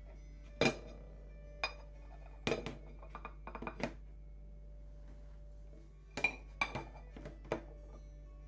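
Ceramic rice bowl and plates clinking and knocking together as the bowl, packed with cooked rice, is handled and turned over onto a plate. There is a sharp clink about half a second in, a run of lighter knocks a few seconds in, and another cluster of clinks near the end, over soft background music.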